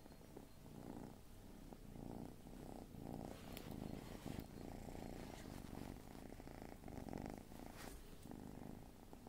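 Kitten purring close to the microphone, a low rumble that swells and eases, with a couple of faint clicks.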